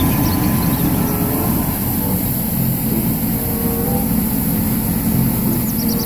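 Bucher street-sweeper truck running steadily, its engine and sweeping gear making a dense, even noise as the rotating side brush sweeps litter along the gutter. A few faint chirps come in near the end.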